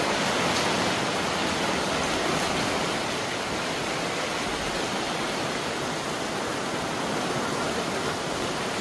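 Heavy rain pouring down in a steady downpour.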